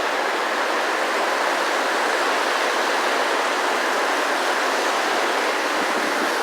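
Heavy rain pouring down in a steady, dense hiss that holds the same level throughout.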